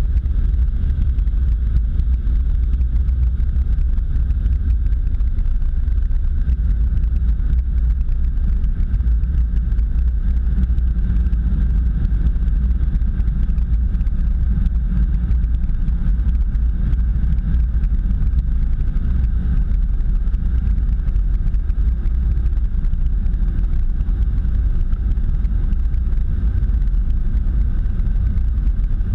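Automatic car wash machinery running overhead, a rotating cloth-strip roof brush sweeping over the car, heard as a steady, muffled low rumble.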